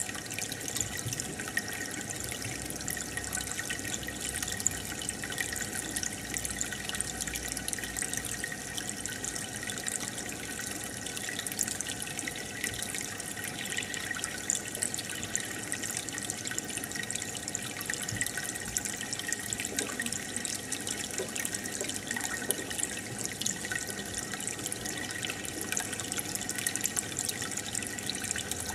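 Aquarium water bubbling steadily, with a constant fizz and crackle of small bursting bubbles from the tank's air bubbler and filter.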